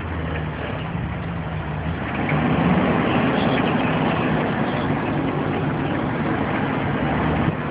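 A motor vehicle's engine running steadily, getting louder about two seconds in.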